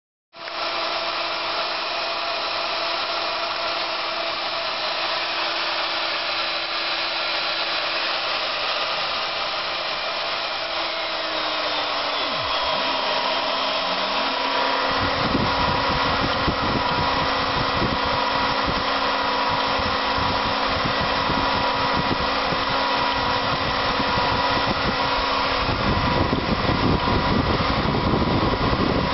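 Kress FM 530 router spindle motor running at high speed under triac speed control, a steady whine with a hum. About ten seconds in its pitch glides down and settles lower as the speed drops from about 20,000 to about 16,200 rpm. From about halfway on, irregular low rumbling and knocks join it.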